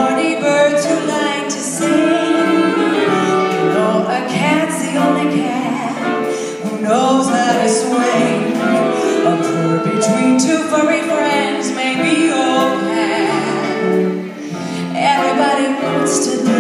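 A woman singing into a microphone over instrumental accompaniment, her voice gliding between held notes.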